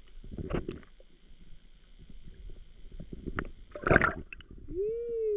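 Water splashing and sloshing, with a loud splash about four seconds in. Near the end there is a short hum that rises and then falls.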